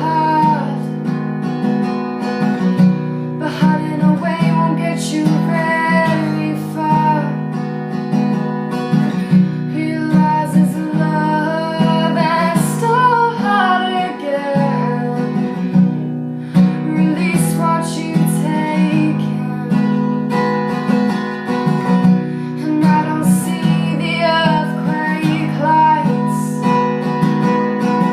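Strummed acoustic guitar playing an original song, with a woman singing over it in places.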